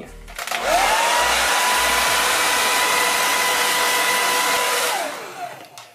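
Hand-held hair dryer switched on, its motor whine rising to a steady pitch and blowing steadily for about four seconds. It is then switched off and winds down near the end.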